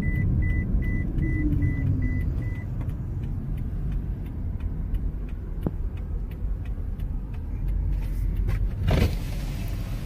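Car cabin road noise, a steady low rumble from driving. A car's electronic warning chime beeps rapidly at one high pitch, about three beeps a second, and stops about two and a half seconds in. A brief louder burst of noise comes near the end.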